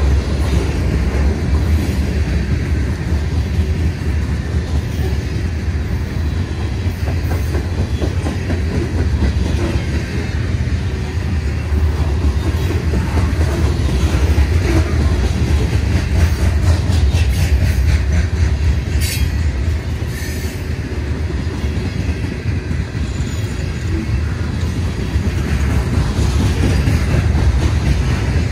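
Freight train of hopper cars rolling past: a steady low rolling noise of steel wheels on rail, with a few sharp clanks about two-thirds of the way through.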